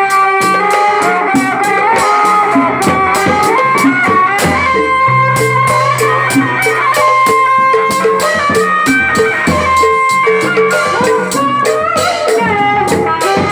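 Instrumental music with a steady drum beat, a bass line and a stepping melody.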